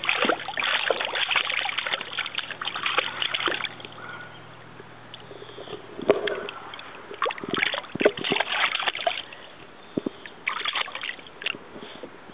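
Water splashing and sloshing in a small plastic baby bathtub as a baby slaps and paddles it with its hands, in several bouts with quieter gaps between. A single sharp click sounds about six seconds in.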